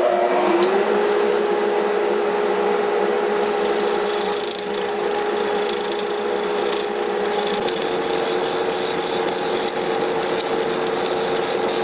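Wood lathe motor spinning up with a rising hum, then running steadily while a hollowing tool scrapes out the inside of a wet pecan hollow form with a steady hiss. About eight seconds in, the hum shifts a little higher.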